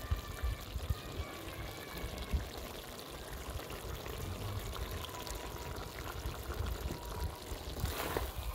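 Curry simmering in a clay pot over the fire: a steady rushing, watery noise with a low rumble. About eight seconds in, a ladle scrapes briefly through the vegetables in the pot.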